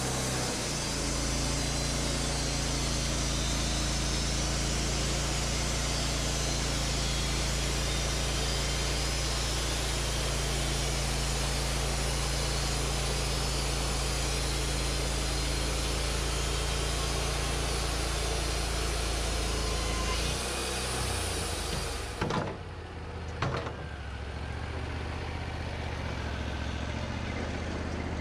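Wood-Mizer LT40 bandsaw sawmill cutting through a bare ash log: the engine runs steadily under load with the hiss of the band blade in the wood. About twenty seconds in the cut ends, the engine note drops, two sharp knocks follow, and the engine settles to a lower idle.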